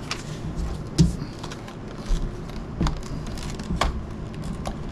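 Hands handling a small cardboard product box: about four sharp taps and clicks spread through, over faint rustling.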